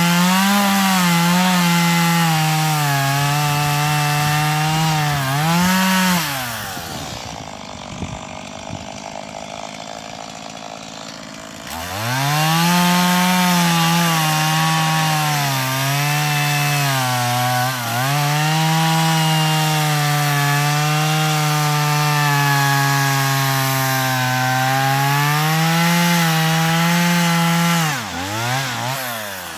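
Husqvarna 390XP two-stroke chainsaw ripping a log in an Alaskan chainsaw mill at full throttle, its pitch wavering as it bogs and recovers under load. About six seconds in the throttle is let off and the engine drops to a low idle. It revs back up about twelve seconds in and cuts steadily until it is let off again near the end.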